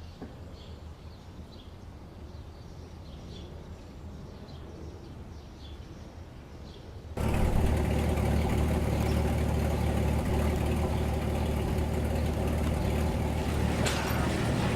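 Faint repeated bird chirps over a low hum, then an abrupt cut about seven seconds in to the loud, steady running of sawmill machinery with a deep hum.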